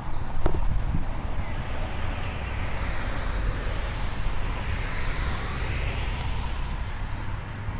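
Wind rumbling on the microphone while cycling along an asphalt path, with a rushing noise that swells and fades in the middle. A single sharp click about half a second in, and a few faint bird chirps near the start.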